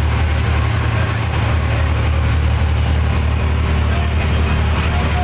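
Fishing trawler's engine running with a steady low drone.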